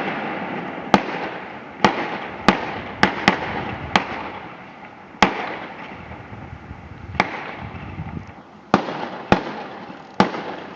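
Fireworks going off: about a dozen sharp bangs at uneven intervals, each followed by a fading crackle and rumble.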